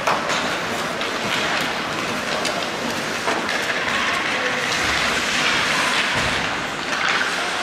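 Ice hockey skates scraping and carving on the rink ice, with the clack of sticks and puck, as a steady noisy wash. A sharp knock comes right at the start.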